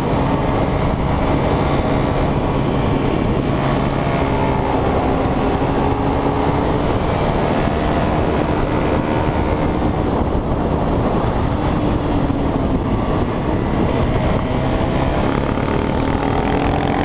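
A motor running at a steady speed: a constant hum made of several held tones that waver slightly.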